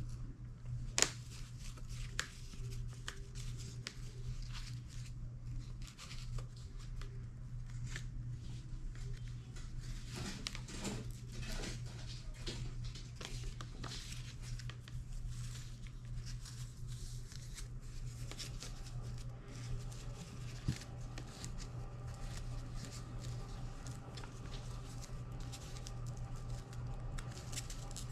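Scattered small clicks, taps and rustles of small objects being handled, with one sharper click about a second in, over a steady low hum.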